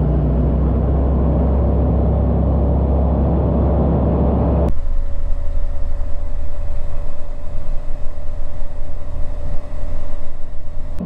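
Light aircraft's propeller engine running steadily at power during takeoff. About halfway through, the sound changes abruptly to a thinner engine tone under loud, gusty wind buffeting.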